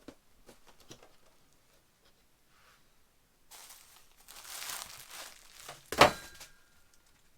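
Bubble wrap being unwrapped and crinkled, with faint handling clicks at first, then a louder stretch of crinkling, ending in one sharp snap about six seconds in.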